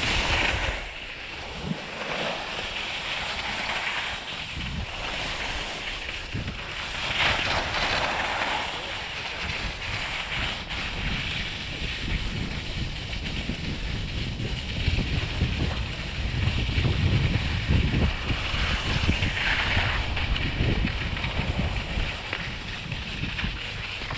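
Snow hissing and scraping under a skier sliding down a packed, tracked piste. The hiss swells three times, as in turns, with wind rumbling on the action camera's microphone.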